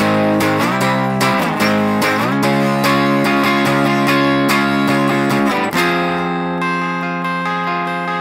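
Electric guitar strumming chords; about six seconds in the strumming stops and a chord is left ringing, with a few single notes picked over it.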